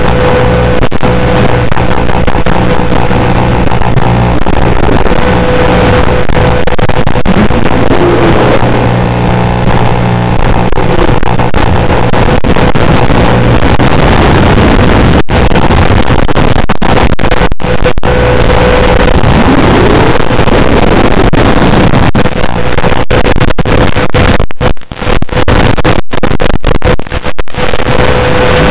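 FPV quadcopter's motors droning, the pitch sliding up and down a few times with throttle changes. Brief dropouts break up the sound near the end.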